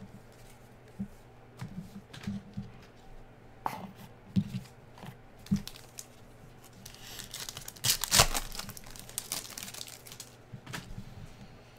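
A foil trading-card pack torn open by hand: a loud crinkling rip lasting about two seconds, a little past halfway. Before it come scattered soft clicks and rustles of cards and packs being handled.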